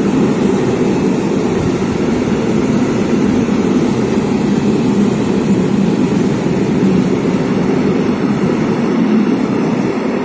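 ZSSK Cargo class 131 twin-unit electric locomotives working a freight train of Eas open wagons: a loud, steady deep drone.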